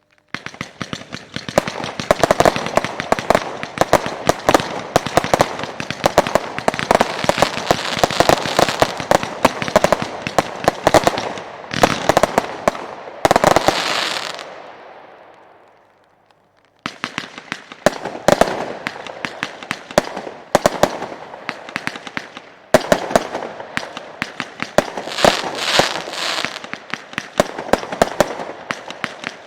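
Weco 'Bonfire Night' 20 mm fireworks battery firing: a fast, dense run of launch thumps and small shell bursts. Near the middle there is a crackling stretch that fades away, then about a second of pause, and the rapid shots start again.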